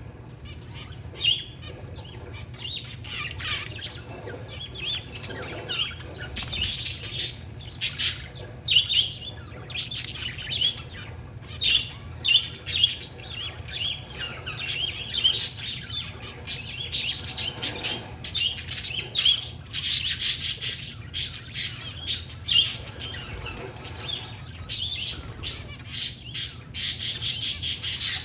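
Parakeets and zebra finches chirping and squawking together: many short overlapping calls, growing busier and louder near the end.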